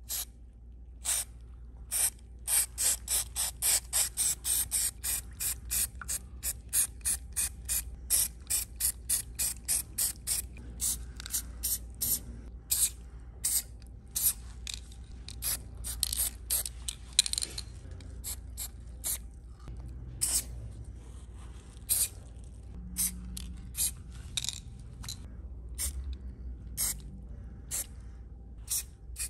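Aerosol spray paint cans sprayed in many short bursts, each a brief hiss. The bursts come fast at first, about three a second, then more spaced out with gaps between.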